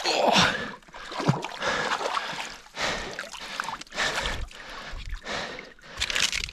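Irregular bursts of splashing water and scrambling, about one a second with short pauses, as a person climbs out of a river onto the bank.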